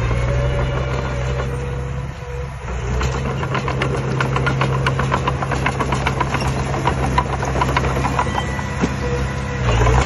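Diesel engine of a Komatsu D20P small crawler bulldozer running steadily under load as it pushes dirt, with many irregular sharp clicks and clanks over most of it. The sound dips briefly about two seconds in and shifts just before the end.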